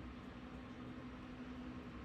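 Faint steady room tone: an even hiss with a steady low electrical hum.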